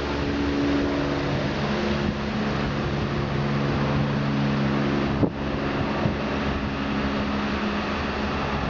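Medical helicopter climbing away overhead after lift-off: a steady whir of rotor and turbine with several low hum tones that thin out about halfway through. A brief sharp knock about five seconds in.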